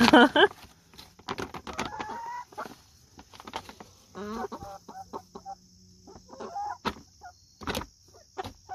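Young chickens clucking and squawking: a loud squawk right at the start, scattered chirping clucks, then a quick run of short clucks near the end, with a few sharp taps among them.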